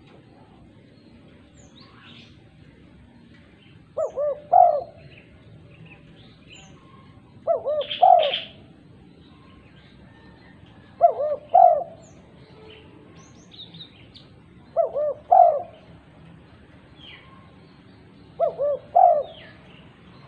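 Female spotted dove cooing: five calls spaced about three and a half seconds apart, each a quick couple of short notes followed by a longer one. Faint chirps of small birds in between.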